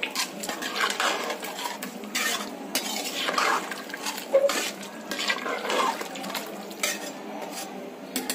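A perforated metal spatula stirring watery chicken biryani masala in a large metal pot, clinking and scraping against the pot in irregular strokes.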